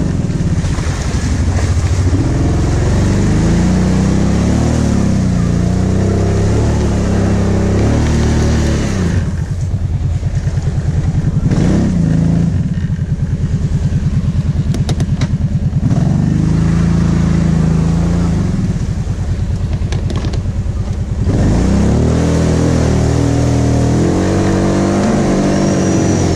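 Kawasaki KVF 750 Brute Force quad's V-twin engine revving up and down repeatedly while it drives through deep mud, dropping back to a lower note a few times before picking up again.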